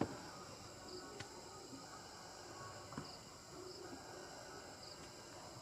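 Faint crickets chirping: a steady high buzz with a short chirp about once a second, and a couple of faint knocks.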